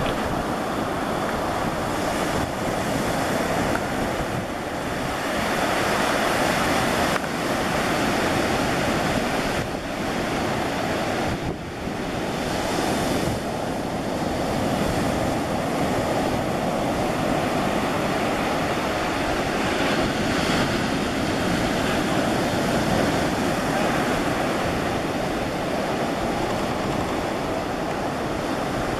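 Ocean surf breaking and washing up a sandy beach, a steady rushing that swells and eases with the waves, with wind buffeting the microphone.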